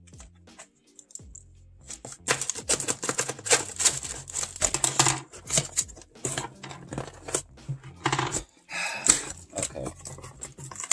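Packing tape and cardboard flaps of a shipping box being torn and pulled open by hand: a quick run of ripping, crinkling and scraping noises starting about two seconds in.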